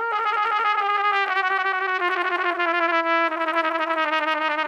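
Trumpet playing fast trills, the tone flicking rapidly back and forth between two neighbouring notes. The trill steps down in pitch twice, about a second in and again about three seconds in.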